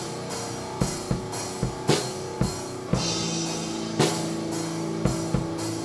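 Playback of a raw multitrack drum-kit recording, a rough demo made with budget microphones set up haphazardly in a rehearsal space. A strong hit lands about once a second, with cymbals and sustained pitched notes under the drums.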